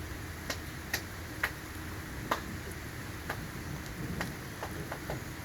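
Steady rain, with large drops ticking sharply and irregularly on a nearby surface, roughly one or two a second.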